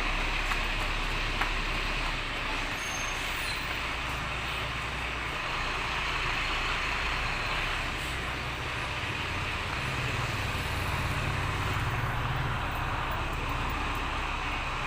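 Engine and road noise of a moving vehicle, a steady low hum under a constant rushing noise, heard from inside.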